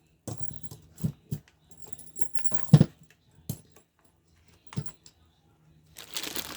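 Steel handcuffs handled and set down: scattered clinks and knocks with a light metallic ring, the loudest knock a little under three seconds in. Near the end, packaging starts to rustle and crinkle.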